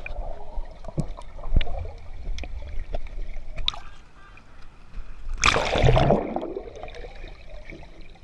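Swimming-pool water sloshing and gurgling, heard partly from under the water, with a louder rush of splashing about five and a half seconds in.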